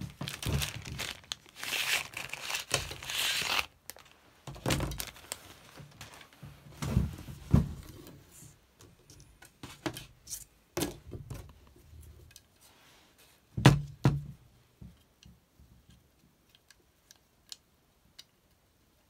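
Handling noise from a tennis racket frame being worked on by hand: a crinkling, tearing rustle for the first few seconds, then scattered knocks and thumps, the loudest about two thirds of the way in. Near the end come faint light clicks as a plastic grommet strip is pressed into the frame.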